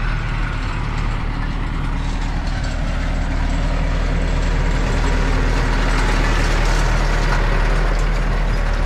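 Landini tractor's diesel engine running steadily under load as it pulls a grass harrow, growing louder as it comes closer and peaking about six to seven seconds in.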